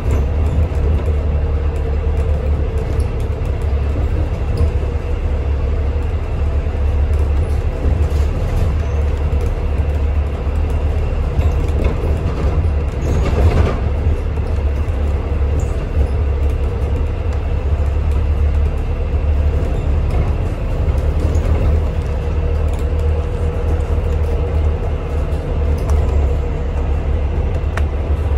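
Cabin sound of a moving Volvo B5LH hybrid double-decker bus: a steady low drivetrain and road rumble with a faint steady hum over it. A short bump or rattle about halfway through.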